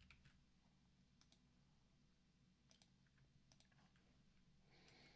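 Near silence with a few faint computer mouse clicks, several in quick pairs.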